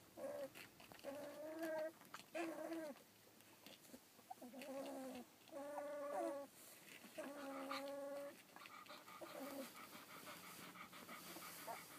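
Fifteen-day-old collie puppies whining: about seven short, fairly steady-pitched calls, each under a second long.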